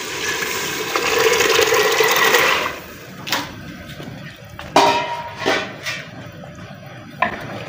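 Washed kidney beans and their water poured into fried masala in a pressure cooker: a rush of pouring and splashing for about two and a half seconds, then a few short metal clinks and scrapes against the pot.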